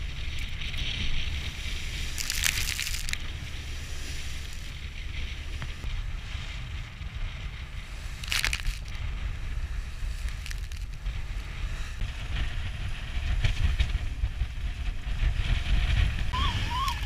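Wind buffeting the microphone over the rush of choppy water along a motoring sailboat's hull, with two louder bursts of spray about two and a half and eight and a half seconds in. Near the end a VHF radio's digital emergency-call (DSC) alarm starts up with a rapid warbling tone.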